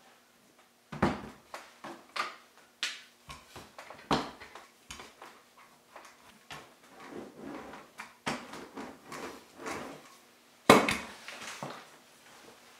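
Clay being pressed and thumped onto a canvas-covered table, then a wooden rolling pin rolling the clay into a flat slab, with a series of dull knocks and some rolling scrape; the loudest knock comes near the end.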